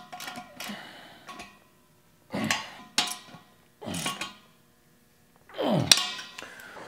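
Metal clinks and scrapes of a 17 mm wrench working the axle nut of an air compressor's rear wheel, which spins along with the nut. The sounds come in four short bursts with quiet gaps between them.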